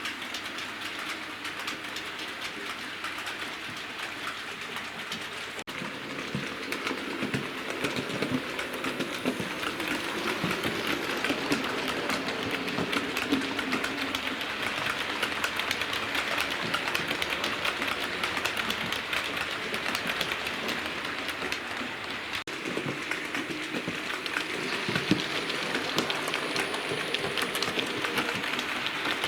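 Model railway train running on the layout's track: a steady, dense clicking and rattling of small wheels on the rails, with the motor running, growing somewhat louder about six seconds in.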